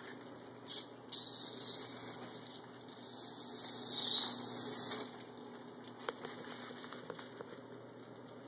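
Clear protective plastic film being peeled off a flat-screen TV screen: two long, hissing, crackling pulls, the second lasting about two seconds, followed by a few faint clicks.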